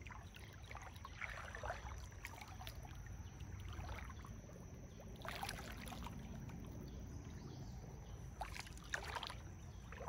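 Footsteps wading and squelching through shallow creek water and mud, a few faint splashy steps about a second in, again around five and a half seconds and near the end, over a low steady rumble.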